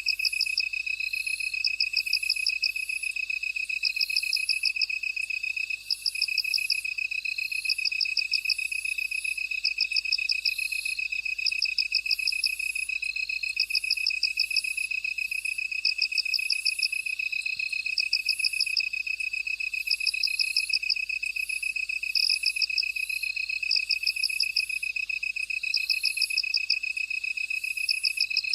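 A chorus of field insects calling: one steady, unbroken high trill, and over it bursts of rapid pulsed chirping that repeat roughly every second and a half to two seconds, with shorter rising chirps and fainter, higher calls.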